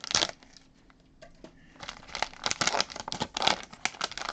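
Plastic packaging crinkling and rustling as a trading card is unwrapped by hand. There is a short burst at the start, a brief lull, then steady crinkling from about two seconds in.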